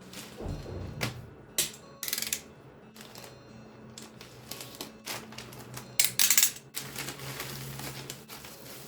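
Mechanical keyboard keys clacking in irregular strokes, with a quick run of keystrokes about two seconds in and a louder flurry about six seconds in, over quiet background music.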